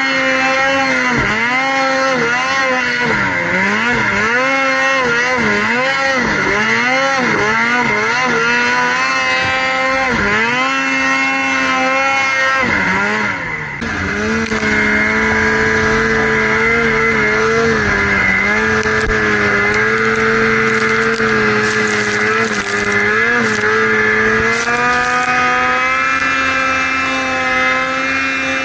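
Snowmobile engine revving hard in deep powder, its pitch swinging up and down with the throttle for about the first half. After a brief dip about halfway through, it holds a steadier high pitch with small throttle blips.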